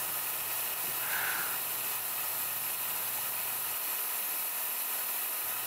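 Steady hiss of a mist-coolant nozzle spraying an air-and-lubricant mist at the end mill on a milling machine.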